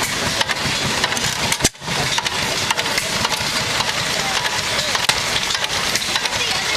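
Antique hopper-cooled stationary gas engine running, with sharp exhaust pops roughly twice a second over a steady wash of noise.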